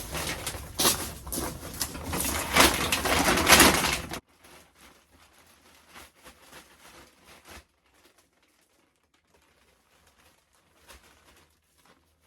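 Loud rustling and crinkling of a feed bag being handled around potted plants, for about four seconds, then it stops abruptly and only faint scattered sounds remain.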